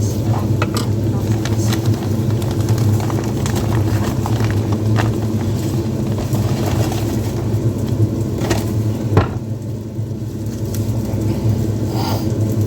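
Steady low mechanical hum from a running kitchen appliance, such as an extractor fan or motor, with a few light clicks and clatters from kitchen work on top.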